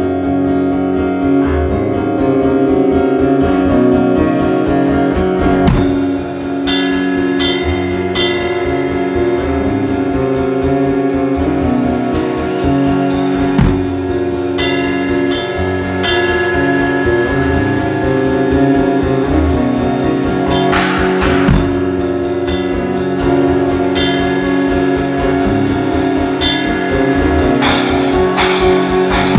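Live guitar and drum kit jam: the guitar plays sustained notes and chords over a steady drum beat, with brighter cymbal washes about two-thirds of the way through and again near the end.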